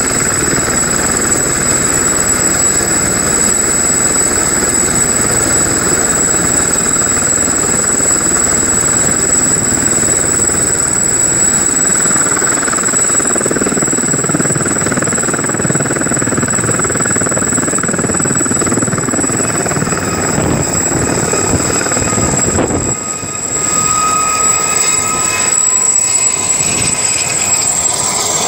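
Sud Aviation Gazelle helicopter's turboshaft engine and main rotor running at full power, a steady loud rotor and engine noise with a high turbine whine on top. About 23 seconds in the sound dips briefly and changes pitch, and near the end the helicopter has lifted off and is banking away.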